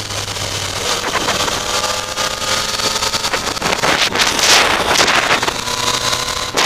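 Yamaha FZ-09's inline three-cylinder engine running at road speed through curves, under wind noise on the microphone. The wind buffeting swells and is loudest about four to five seconds in.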